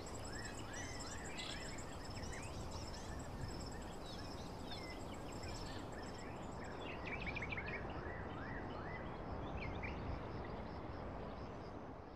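Outdoor nature ambience: birds chirping and insects trilling rapidly over a steady hiss.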